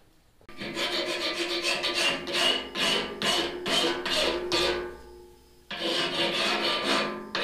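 Hand file scraping back and forth on a metal bar clamped in a post vise: quick rasping strokes, about three a second, with a short pause about five seconds in.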